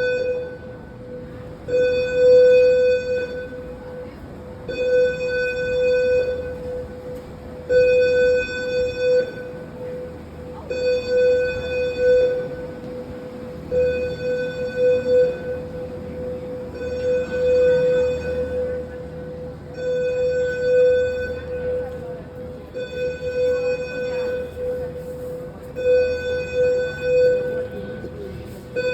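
A building fire alarm sounding its alert signal: a buzzy electronic tone that pulses about once every three seconds, each pulse lasting about a second and a half. It is the alert stage of the alarm, meaning a building alert has been initiated and staff are investigating.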